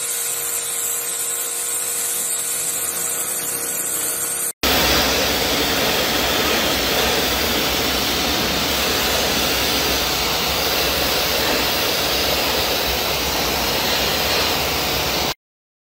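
Pressure washer spraying. At first a steady hum with several held tones sits under the hiss of the jet. After a sudden break about four and a half seconds in, a louder, even hiss of spray with a low rumble follows, cutting off shortly before the end.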